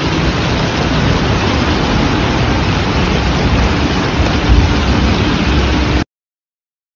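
Fast-flowing floodwater rushing down a street, a loud, steady wash of noise that cuts off abruptly about six seconds in.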